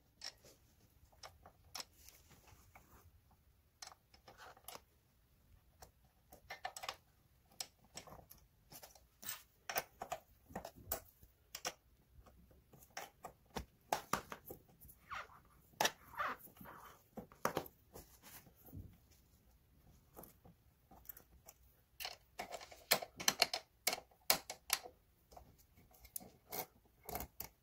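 Irregular light metal clicks and taps of an Allen key turning and seating bolts in a gaming chair's backrest bracket, coming in scattered clusters.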